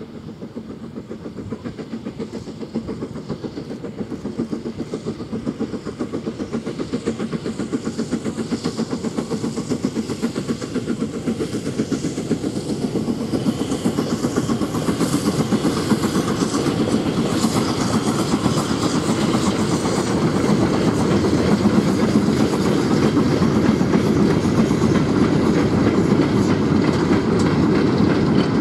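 Steam locomotive hauling a goods train, growing louder as it approaches with a steady rapid exhaust beat, then the wagons clattering over the rail joints as they roll past.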